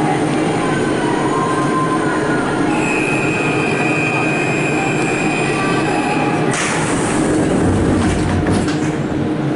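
Interior of a Siemens VAL 208 automatic metro train standing at a station: a steady high tone sounds for about four seconds, then a sudden rush of noise comes in about six and a half seconds in and a low rumble builds as the train starts to pull away.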